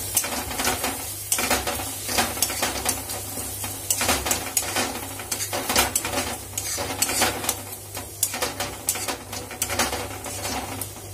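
Metal spatula scraping and knocking against a kadhai in quick, irregular strokes as the onion-tomato masala and freshly added cream are stirred and fried, with a light sizzle underneath.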